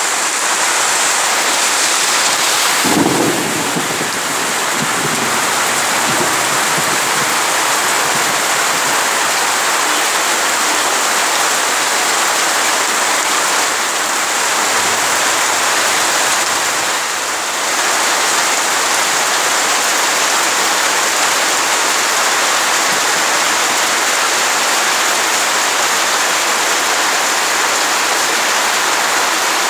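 Heavy rain falling steadily, a dense even hiss, with a brief low rumble of thunder about three seconds in.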